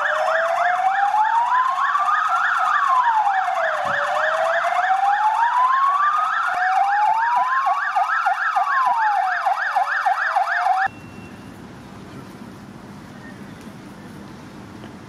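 Police car sirens sounding together, a fast yelp layered over a slower rising-and-falling wail. They cut off abruptly about eleven seconds in, leaving only faint outdoor ambience.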